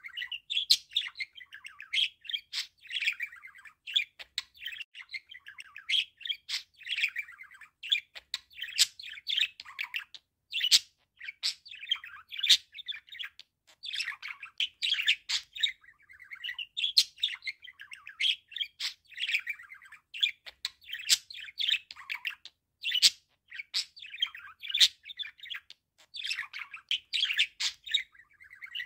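Budgerigar warbling: a near-continuous run of quick chirps and chattering notes mixed with sharp clicks, broken only by brief pauses.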